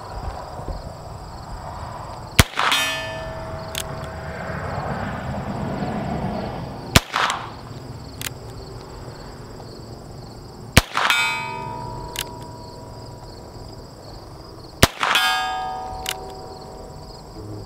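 Four shots from a .22 single-action revolver, about four seconds apart. Each is followed a split second later by a steel target ringing as it is hit, the ring fading over about a second. A fainter click falls between the shots.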